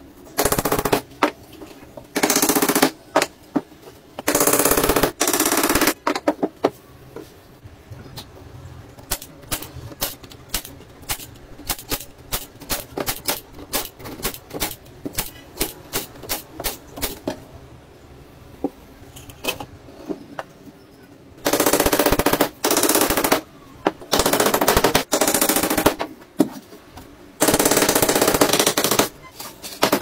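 A power drill running in short bursts of one to two seconds, driving screws into the joints of a wooden frame. In the middle stretch a staple gun fires repeatedly, a rapid run of sharp clicks about two or three a second, fastening wire mesh to the wood.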